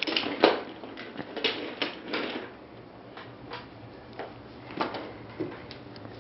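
Toys being handled and set down: a scatter of irregular clacks and knocks, busier in the first couple of seconds and sparser after.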